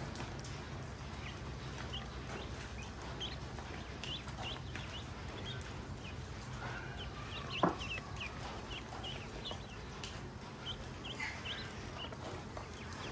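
Newly hatched ducklings peeping over and over in short, high chirps, with a single sharp tap about halfway through.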